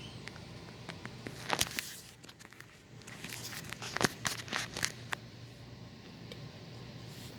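Crinkling and clicking of something being handled, in two short spells about a second and a half in and from about three to five seconds in, over a faint steady hum.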